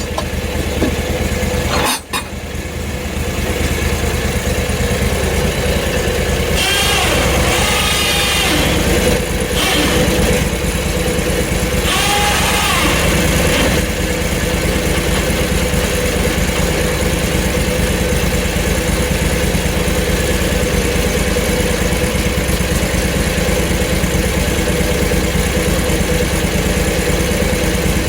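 Small gasoline engine of a portable bandsaw mill running steadily, with a brief break about two seconds in. A higher wavering sound comes in over it twice, around seven and twelve seconds in.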